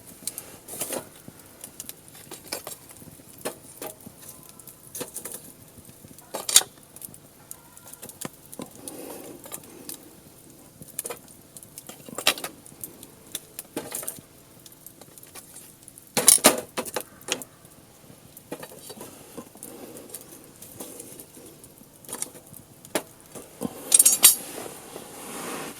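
Firewood burning and crackling, with irregular sharp pops and snaps; three louder snaps come about a quarter of the way in, past the middle, and near the end.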